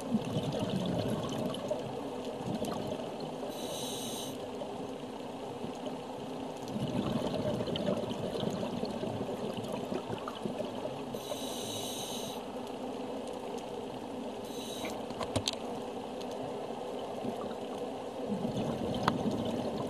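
Underwater sound around a scuba diver: a steady wash of water noise, with the hiss of exhaled regulator bubbles coming in short bursts every several seconds. A few sharp clicks stand out near the end.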